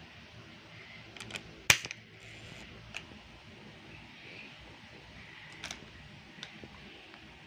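Sharp pop of a plastic straw punched through the sealed film lid of a bubble milk tea cup, a little under two seconds in, with lighter clicks of the plastic cup being handled before and after.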